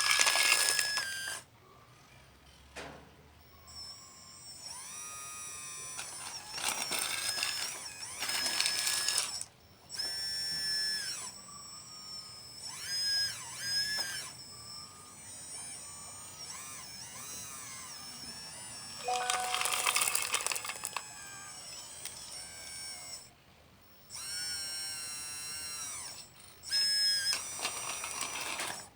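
Electric motors and hydraulic pump of radio-controlled construction models whining in short stop-start runs, the pitch rising and falling as they speed up and slow down.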